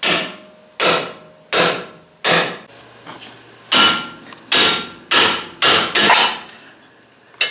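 Hammer striking a steel pickle fork ball joint separator wedged between the control arm and the steering knuckle, about ten hard metal-on-metal blows with a short ring after each and a pause near the middle. The blows drive the fork in to break the worn ball joint's stud loose from the knuckle.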